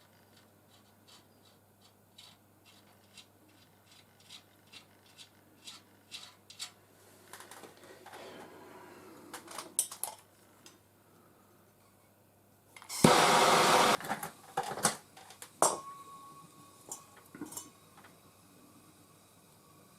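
Hand work at a workbench on a copper lamp-post top: a run of light clicks and taps, a loud noisy burst lasting about a second, then more scattered taps.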